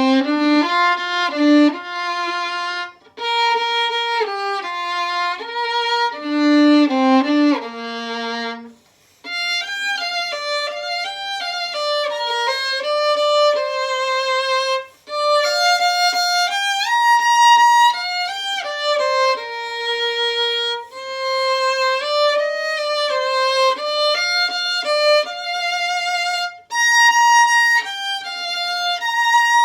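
Solo violin playing a gentle Japanese winter children's song melody with vibrato. It breaks off briefly about nine seconds in, then carries on in a higher register.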